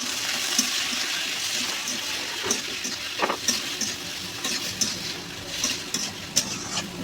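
Ivy gourd and onions frying in oil in a kadai: a steady sizzle, with sharp clicks and scrapes of a spatula against the pan as it is stirred, the clicks coming more often in the second half.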